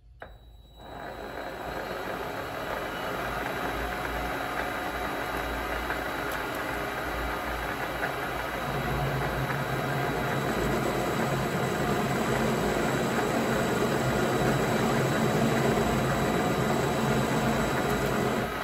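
Vevor MX400 mini lathe starting up about half a second in and running steadily, its three-jaw chuck spinning a metal punch blank as a light extra pass is turned. About eight seconds in it grows louder with a deeper hum added.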